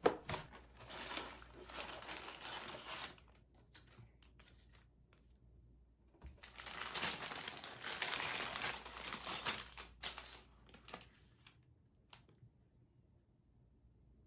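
Plastic LEGO parts bags crinkling as they are handled and opened, in two stretches with a few sharp clicks between them.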